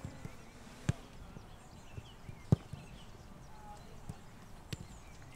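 Footballs being kicked on a grass pitch: a sharp thud about a second in, the loudest about two and a half seconds in, and another near the end, with a few softer touches between.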